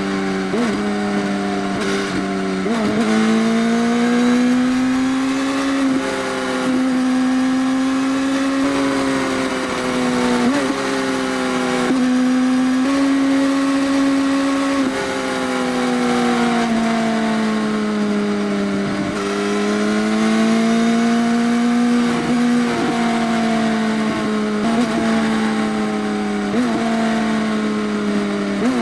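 Motorcycle engine with an Arrow full exhaust system, dB killer removed, running loud through the pipes. Its note drifts slowly up and down in pitch with a short sharp break every few seconds.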